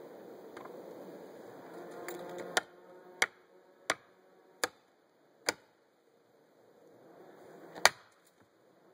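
Felling wedges being driven into the back cut of a large cedar: sharp metal-on-wedge blows, five about two-thirds of a second apart, then a pause and a last, loudest blow near the end.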